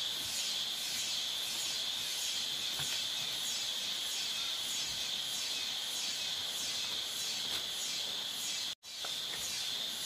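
Chorus of night insects in tropical rainforest: a steady high-pitched buzz with an evenly pulsing trill above it. It cuts out for an instant near the end.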